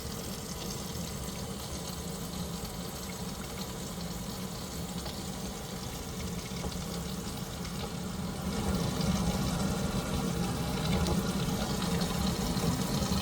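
Water running steadily from a newly installed kitchen faucet into the sink, getting a little louder about two-thirds of the way through; the first run of water through the new faucet while it is checked for leaks.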